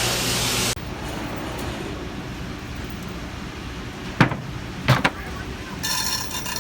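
A heavy vehicle's engine running steadily, then cut off abruptly under a second in. After it come two sharp knocks less than a second apart and, near the end, a brief high whine.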